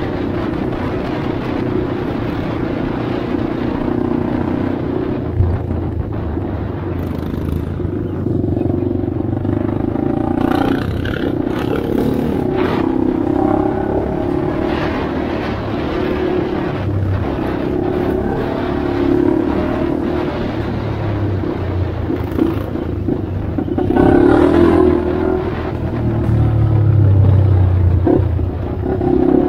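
Honda 400EX ATV's single-cylinder four-stroke engine running under way on a dirt trail, revs rising and falling with the throttle. It pulls harder in louder spurts near the end.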